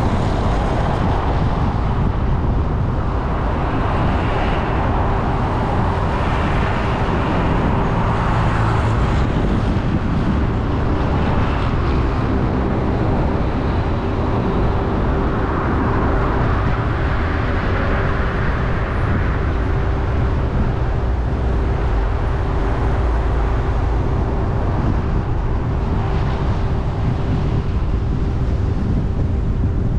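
A car driving in city traffic: steady engine and tyre rumble with slow swells of road noise, and a constant thin hum.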